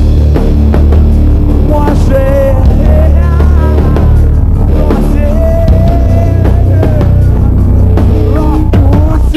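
A rock band playing live at full volume, with a heavy drum kit and bass and a sung vocal line wavering over them.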